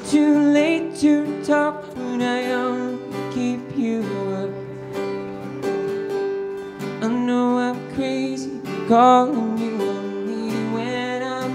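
A man singing while strumming a steel-string acoustic guitar, a live solo performance.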